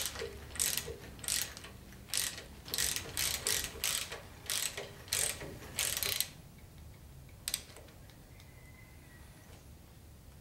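Hand socket ratchet clicking in short runs, about two a second, as it turns the rocker arm nuts on a Chevy 350 small-block's cylinder head. The runs stop about six seconds in, and one more click comes a little later.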